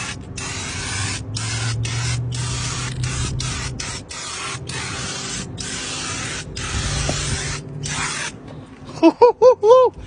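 Aerosol spray can hissing in about a dozen short bursts of uneven length, with brief pauses between presses of the nozzle. Near the end come a few quick, loud warbling pitched sounds.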